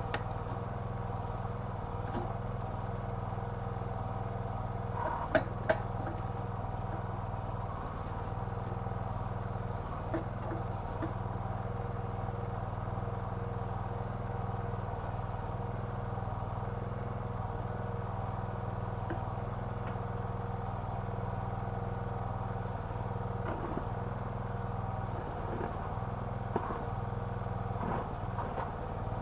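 Small gas engine of a towable backhoe running steadily while the hydraulics work, with a couple of sharp knocks about five seconds in and a few lighter clicks later.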